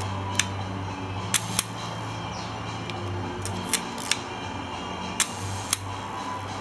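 Leica M4-P's cloth focal-plane shutter being fired with the back open. There is one sharp click, then three releases, each heard as two sharp clicks a quarter to half a second apart as the shutter opens and closes at a slow speed.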